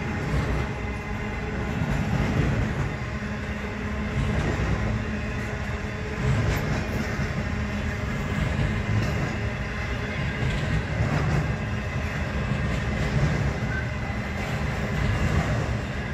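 Double-stack intermodal freight train rolling past, its steel wheels running on the rails in a steady rumble that rises and falls a little as the container cars go by.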